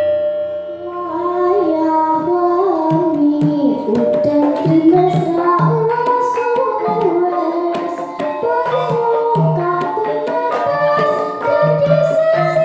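A girl sings a Javanese song into a microphone, her voice coming in about a second in, with live gamelan accompaniment: regular kendang drum strokes under sustained, struck-metal instrument tones.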